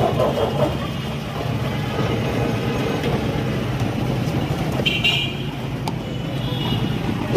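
Road traffic running past with steady engine hum; a vehicle horn toots briefly about five seconds in, and a fainter toot comes near the end.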